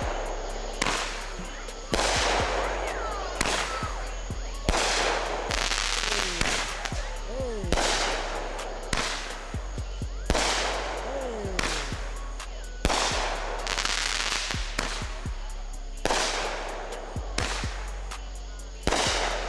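Aerial fireworks going off in a steady barrage, a sharp bang every second or so, each followed by a fading rumble.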